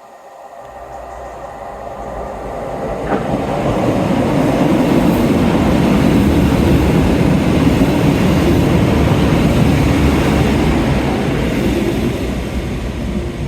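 A train running close past the platform, its rumble building over about four seconds, staying loud, then easing slightly near the end.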